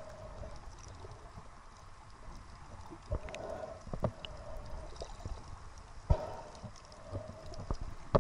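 Muffled underwater sound as heard by a camera under the sea: a steady low rumble of moving water, with scattered clicks and knocks, the sharpest about three, four and six seconds in.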